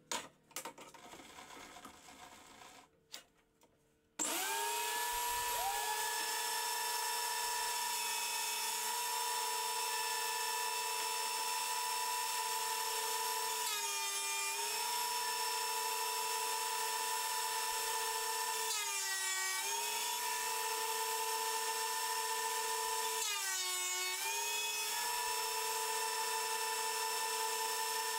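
A knock, then the Metabo DH330 benchtop thickness planer's motor starts about four seconds in and runs with a steady whine. Three times its pitch drops for about a second and recovers as the cutter head bites into a board being fed through.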